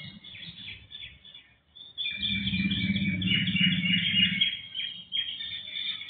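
Several small songbirds chirping and twittering at once, busiest from about two seconds in, with a low rumble underneath for a couple of seconds.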